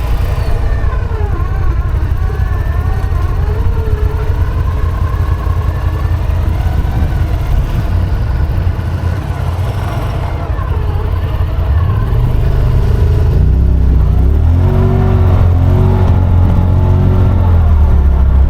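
Side-by-side UTV engine running under way, its pitch wandering up and down as the throttle changes, then revving up and getting louder about two thirds of the way in.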